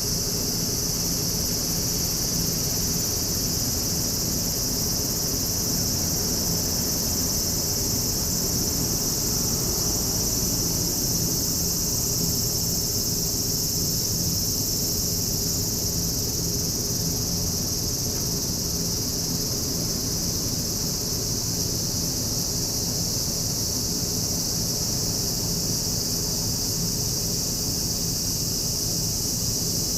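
Insects trilling continuously in a steady high pitch, over a constant low rumble.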